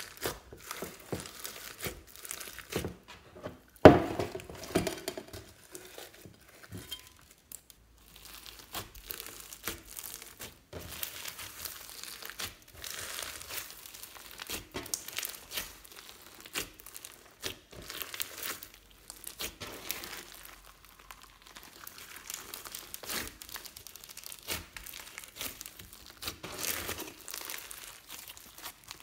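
Hands squeezing, folding and stretching fluffy slime mixed with beads and glitter: many small, irregular crackles and pops. There is one loud thump about four seconds in.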